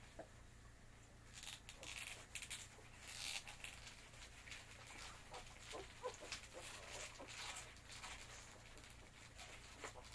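Husky puppies nursing from their mother: faint short squeaks over soft, wet, noisy suckling sounds, starting about a second in.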